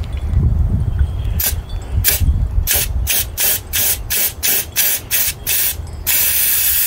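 Siphon spray gun on compressed air, triggered in short hissing bursts about three a second from about a second and a half in, then held open in a steady hiss from about six seconds. A low rumble runs underneath.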